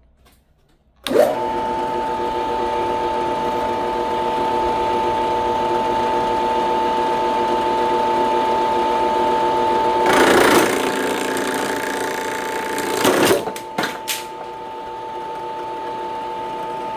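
A drill spinning a spade bit starts about a second in and runs at speed with a steady whine. Around ten seconds in, and again around thirteen, the bit grinds against a Kevlar glove on a piece of wood pushed into it, followed by a few sharp knocks.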